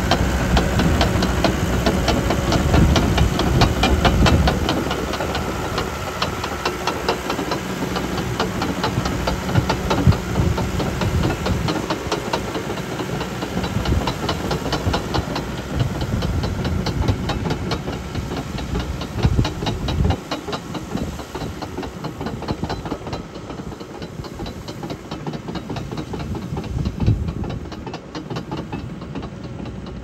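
Cat D3 crawler dozer's diesel engine running under load, with a rapid steady clatter of its steel tracks and several louder surges. It grows fainter in the last third.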